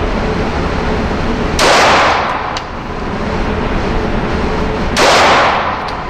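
Two 9mm shots from a Glock 26 pistol, about three and a half seconds apart, each followed by a short decaying tail, over a steady background noise.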